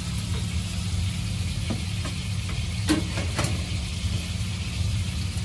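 Steady low hum of a kitchen exhaust fan over meat sizzling in a frying pan, with a few light knocks about two and three seconds in.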